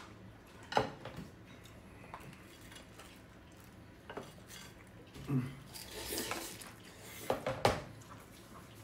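Spoons and chopsticks clinking against plates, bowls and a plastic food container as food is served at the table: a handful of sharp separate clinks, with a quick cluster near the end.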